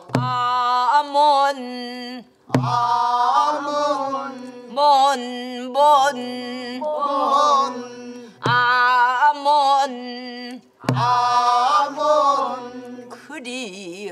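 A woman sings a Namdo (southern Korean) folk song in full-throated pansori style, holding long notes with wide, shaking vibrato. A buk barrel drum struck with a stick gives four sharp strokes, each at the start of a sung phrase.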